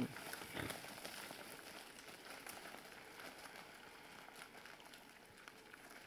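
Faint crackling and crunching of a group of wild boar eating grain scattered on gravel, with a short knock about half a second in.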